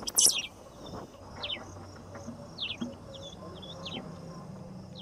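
Open-grassland ambience: a steady high insect drone with short, falling bird chirps several times over. A couple of loud, scratchy bursts come right at the start, and a low hum joins in about two seconds in.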